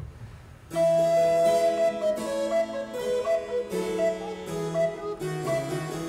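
Two recorders and a harpsichord begin playing together less than a second in, a Baroque sonata movement for two recorders and continuo, with the recorders' held notes over the harpsichord's plucked chords.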